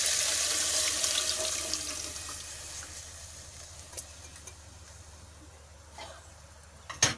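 Tamarind water poured from a steel tumbler into a pot of hot fried tomato tempering, the splashing fading away over the first three seconds. A small click, a soft thud and, near the end, a sharp knock follow.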